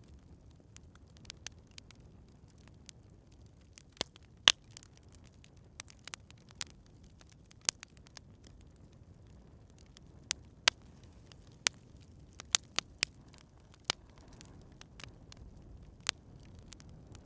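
Campfire crackling: sharp, irregular pops and snaps, roughly one every second or so, over a faint low rumble. The loudest pop comes about four and a half seconds in.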